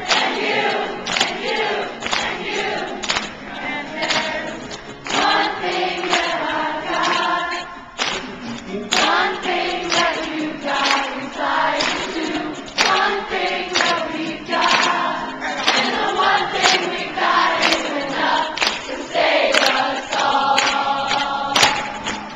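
A crowd singing along loudly together with a man playing an acoustic guitar, the guitar's strums cutting through at a steady beat.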